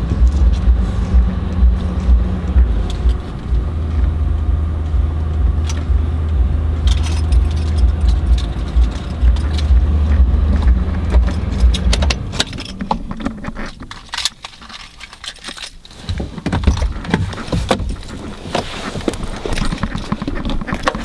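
Low rumble inside a pickup's cab that stops about twelve seconds in, followed by keys jangling with clicks and rattles.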